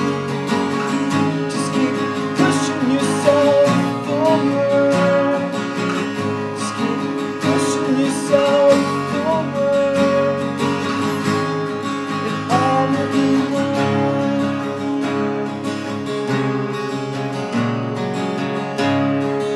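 Two acoustic guitars playing an instrumental break of a song, strummed chords with a melody line running over them.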